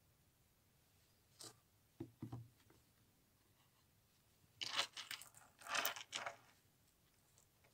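Small handling sounds from hands working with a jewellery charm and a small gift box: a light click and a couple of soft knocks, then two longer bursts of rustling and scraping about halfway through.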